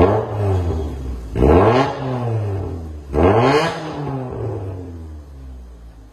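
Proton Waja's four-cylinder engine revved in quick throttle blips through a cat-back exhaust with its valve open: the revs fall from one blip, then rise and fall twice more about a second and a half apart, before settling back to a steady idle that grows quieter.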